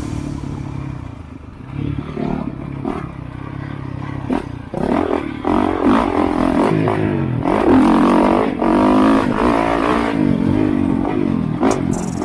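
Honda CRF450RX dirt bike's single-cylinder four-stroke engine under way, its revs rising and falling as the rider works the throttle. It is softer for the first few seconds and louder from about five seconds in, with scattered knocks and clatter.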